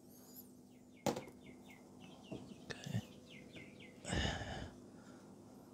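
Faint bird chirping, a quick series of short repeated chirps, with a sharp knock about a second in and a brief scuffing rustle about four seconds in.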